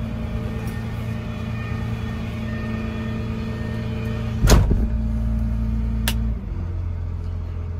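Kenworth T270's diesel engine idling steadily, heard inside the cab. A sharp knock comes about four and a half seconds in and a click about six seconds in, after which the engine's tone drops lower.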